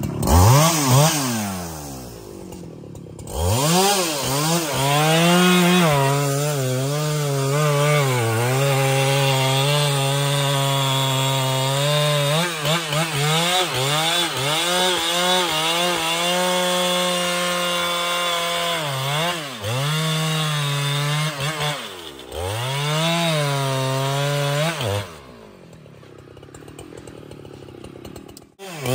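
Husqvarna 395XP chainsaw (a big single-cylinder two-stroke) running at full throttle as it cuts through a large trembesi (rain tree) log. Its pitch sags and recovers as the chain bites, and the revs drop sharply and climb back several times. It falls to a quieter idle about three seconds before the end, then revs up again.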